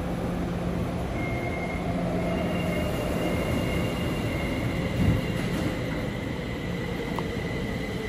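Siemens-built Kaohsiung MRT electric train pulling out of an underground station behind platform screen doors: a steady rumble, with high steady electric whines coming in about one and two seconds in. A single thump comes about five seconds in.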